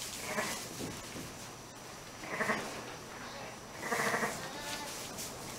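Sheep bleating: three short calls about a second and a half apart.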